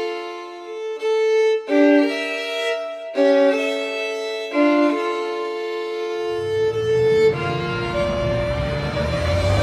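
Background music: a slow melody of sustained, held notes changing about once a second, with a deep low rumble joining about six seconds in.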